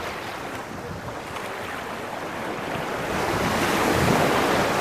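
Sea waves washing onto a beach, swelling to a louder surge of surf about three seconds in, with wind rumbling on the microphone.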